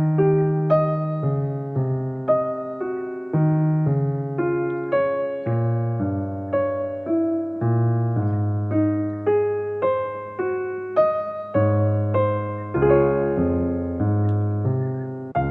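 Soft background music on electric piano: a slow, gentle melody over sustained bass notes, each note struck and fading.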